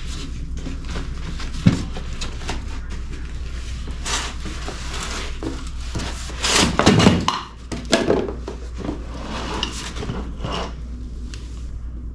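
Parts and packaging being handled on a workbench: scattered clicks, knocks and rustles, with a louder clatter about halfway through, over a steady low hum.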